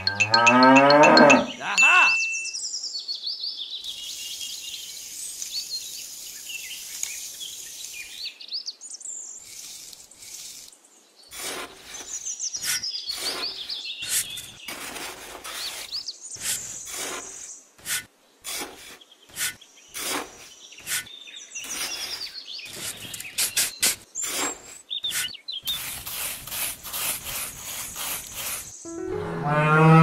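A cow moos about once at the start and again just at the end. In between there are high bird chirps and a run of short, sharp clicks and knocks.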